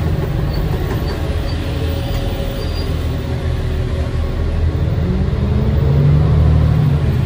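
Cummins ISL 8.9 L six-cylinder diesel of a New Flyer D40LF city bus running, heard from on board. About five seconds in the engine note rises as the bus pulls harder, then drops back near the end.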